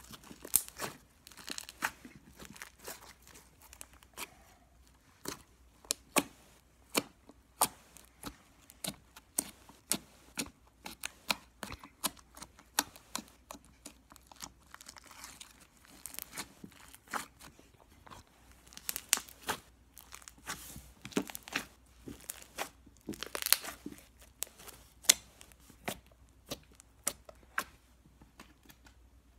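Orange slime being squeezed and kneaded by hand on a wooden surface, giving a steady run of sharp little pops and crackles, a few a second, as trapped air is pressed out.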